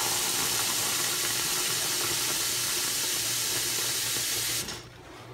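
Kitchen faucet running a stream of water into a plastic scoop of powdered drain cleaner, filling it. The flow cuts off suddenly near the end.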